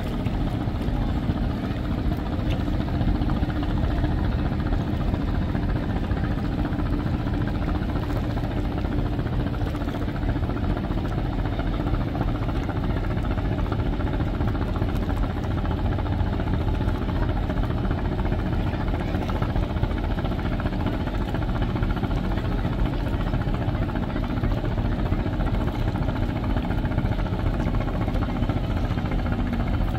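Diesel engines of a large multi-deck river passenger launch running steadily as the vessel passes close by, a continuous low hum.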